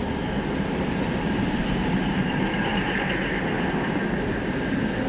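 Diesel multiple-unit passenger train running, a steady rumble without breaks.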